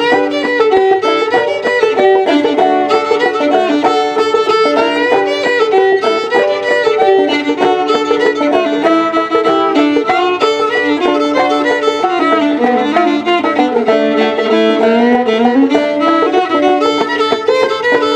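Old-time fiddle playing the melody over clawhammer banjo in an instrumental break between sung verses.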